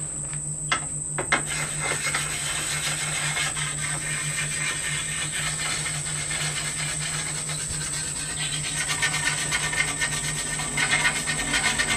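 Oiled sharpening stone rubbing over the steel edge of a sword blade, a continuous scratchy hiss, with a few sharp clicks in the first second or so.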